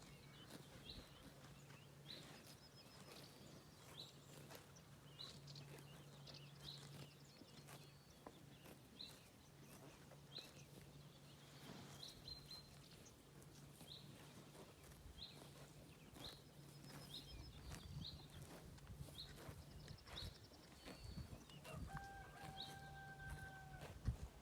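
Faint grazing cows tearing and chewing grass, a steady run of short crunching snips, with small birds chirping about once a second. A low hum comes and goes, and a brief steady tone sounds near the end.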